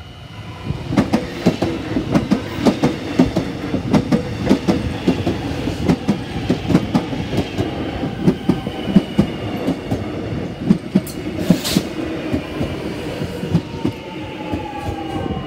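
Metro Trains Melbourne X'Trapolis electric train passing close by at speed, its wheels clattering rapidly over the rail joints. A whine falls in pitch toward the end.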